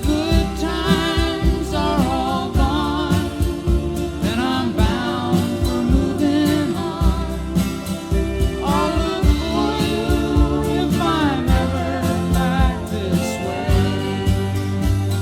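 Country-folk song: singing with vibrato over instrumental backing with a steady beat.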